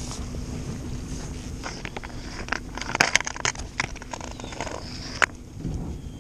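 Handling noise: a run of sharp clicks, knocks and light scrapes as a foam pool-noodle limb line, wrapped with cord and a swivel, is lifted from the water and handled, over a steady low rumble.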